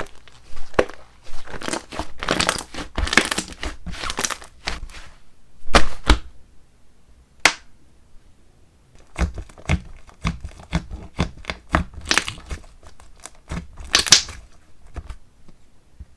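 Slime squeezed, stretched and pressed by hand, giving sticky pops, clicks and crackles in bursts, with a short pause partway through.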